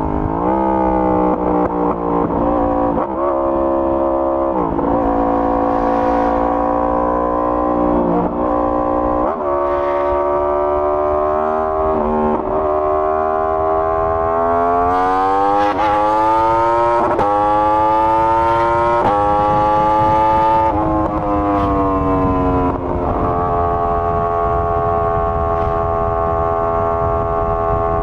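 Yamaha R1's inline-four engine through a full Akrapovic exhaust system while riding. Revs climb and drop sharply several times early on as it shifts through the gears, then rise in one long steady pull before falling back and holding steady near the end.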